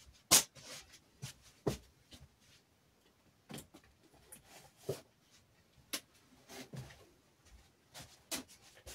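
Scattered short knocks and clicks at irregular intervals of about a second, with the loudest just after the start: a person moving about and handling things in a small room.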